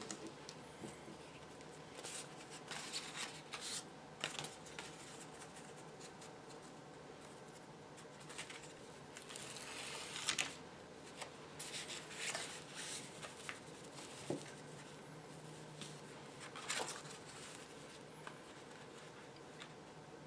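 Pieces of cardstock being handled, shuffled and slid on a cloth-covered table, giving faint scattered rustles and scrapes over a steady low hum.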